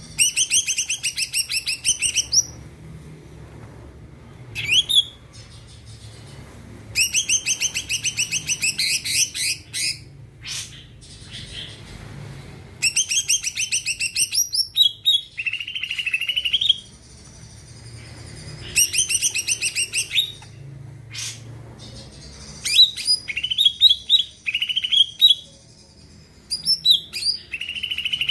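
A cucak ijo (leafbird) singing: bursts of fast, rattling repeated notes, each a couple of seconds long, alternating with short arched whistles.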